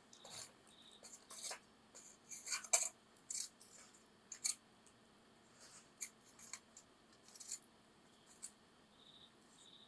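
Wood campfire crackling: irregular sharp snaps and pops, the loudest about three seconds in.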